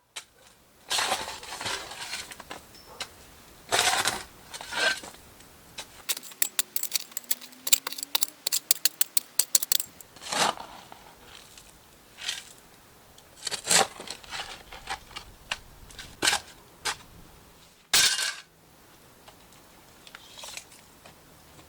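Scattered sharp clicks and light knocks of small objects being handled, with a quick run of ticks, about four or five a second, around the middle.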